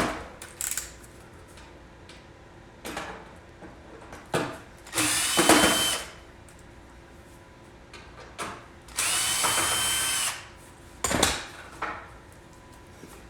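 Power drill/driver running the screws out of a unit's panel in two runs of about a second each, the motor whining up and back down, with a few clicks and knocks of handling between them.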